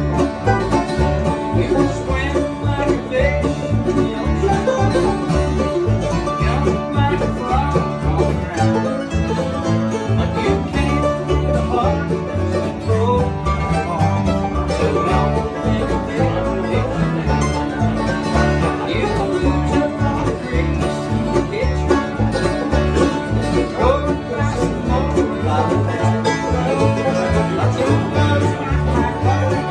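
Acoustic bluegrass band playing together: banjo, mandolins and acoustic guitars picking over an upright bass that keeps a steady beat.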